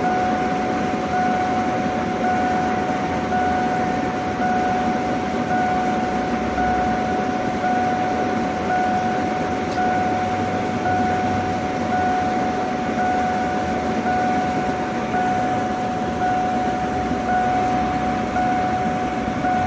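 Ford E150 V8 idling at about 800 rpm, under a scan-tool check for a cylinder 8 misfire (code P0308). A steady high whine runs over the engine noise, with a fainter higher tone that pulses on and off at a regular pace.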